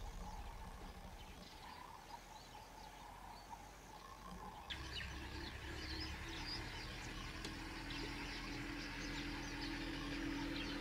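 Faint natural ambience of many small birds chirping and insects. The chirping sets in suddenly about halfway through, and a low steady drone joins it soon after.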